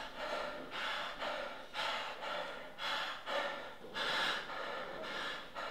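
A man breathing hard and fast, rapid noisy breaths in and out at about two a second.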